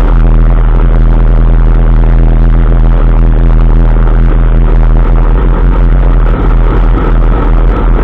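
2003 Dodge Ram 2500 pickup's drivetrain under way: a loud, steady low drone with several steady tones that does not change. It is the noise the owner traces to the transfer case when the truck is in 4x4 High.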